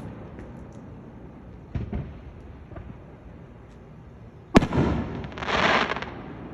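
Fireworks launched close by, bursting loudly: a smaller boom about two seconds in, then a sharp, much louder bang near the middle, followed by about a second of crackling.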